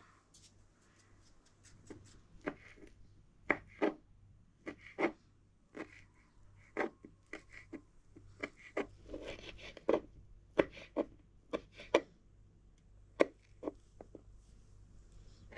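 Knife chopping food on a cutting board: short, sharp knocks at uneven intervals, roughly one or two a second, over a faint steady hum.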